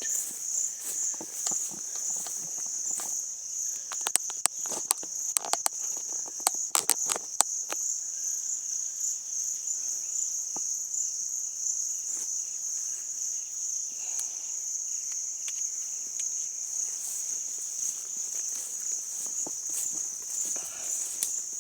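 Steady high-pitched trilling of an insect chorus in bush, pulsing slightly. Sharp crunching clicks, like footsteps on dry leaves and twigs, come in a cluster between about four and eight seconds in.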